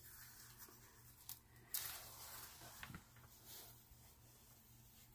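Faint rustling and a few soft knocks of a plastic-covered diamond painting canvas being lifted and bent by hand, the clearest a short rustle a little under two seconds in.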